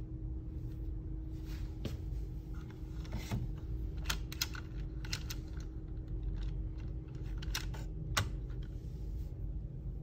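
Irregular light clicks and taps of a hard plastic toy remote-control car being handled, its front wheel turned by hand, over a faint steady hum.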